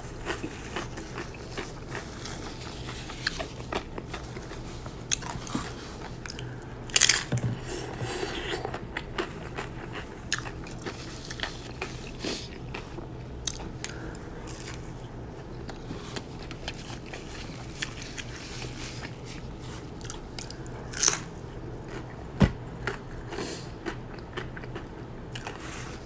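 Close-miked eating: biting into and chewing a crunchy fried potato taco, with irregular crunches and wet chewing, and a few louder bites.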